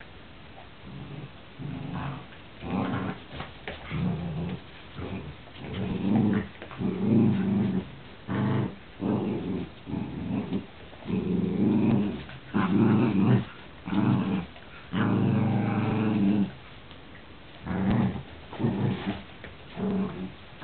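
Dogs growling in play during a tug-of-war over a rope toy: a string of short, low growls, a few drawn out over a second, with brief gaps between them.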